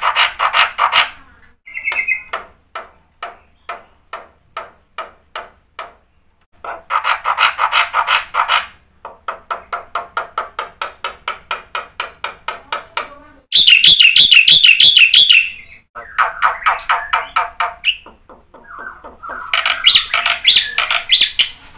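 Black-winged myna (jalak putih) singing a long, varied song: runs of rapid clicking notes and chattering trills, with a loud warbling whistled phrase about two-thirds of the way through.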